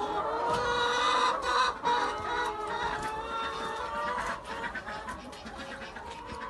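A flock of chickens clucking and calling, many birds at once, with a few short sharp clicks among them.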